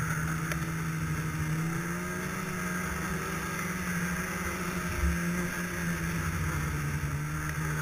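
Snowmobile engine running steadily at cruising speed as the sled travels along a packed snow trail.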